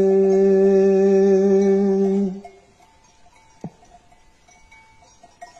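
A man's unaccompanied voice holding the long final note of an uzun hava folk-song line at a steady pitch for about two seconds, then breaking off. Afterwards only faint tinkling of sheep bells from the flock and a single click are heard.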